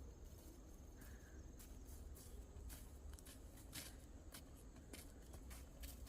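Near silence: a faint low hum with scattered soft clicks and rustles.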